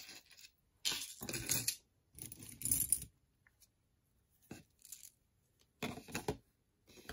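A handful of short scratchy rustling bursts, with quiet gaps between them, from costume jewelry being picked up and sorted by hand.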